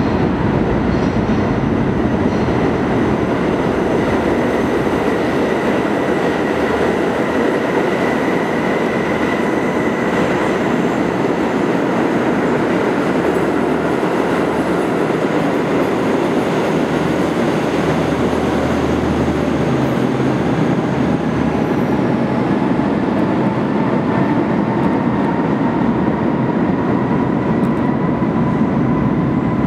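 Subway train running through an underground station, a loud steady rumble of wheels and cars with a thin high whine over it that sits lower in pitch near the end.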